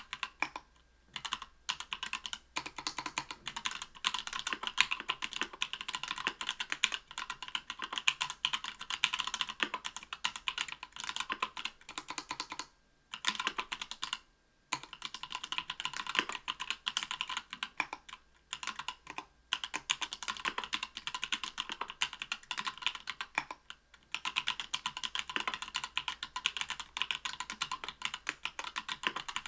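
Typing on a mechanical keyboard with stock, unlubricated SP-Star Polaris Gray 67 g linear switches in an aluminium plate, under Cherry-profile PBT keycaps: a fast, steady run of keystroke clacks. There are a few short pauses, and the longest comes about 13 to 15 seconds in.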